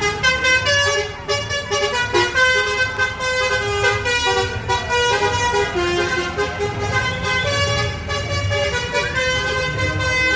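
Basuri multi-tone musical bus horn playing a tune, its notes stepping up and down in pitch.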